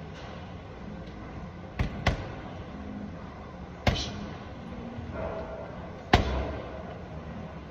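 Boxing-gloved punches landing on a hanging heavy punching bag: four sharp thuds, a quick pair about two seconds in, then one near four seconds and one about six seconds in, each with a short echo of the hall.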